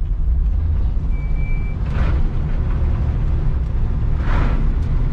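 Classic car's engine running with a heavy, steady low rumble, with a brief high squeak about a second in.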